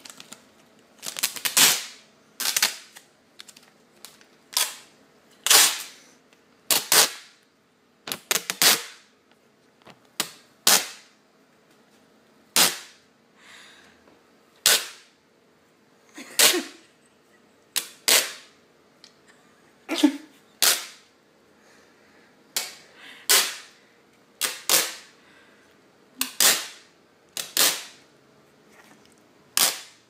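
Adhesive tape being ripped off the roll in short, sharp rips, over and over, roughly one a second and sometimes two in quick succession.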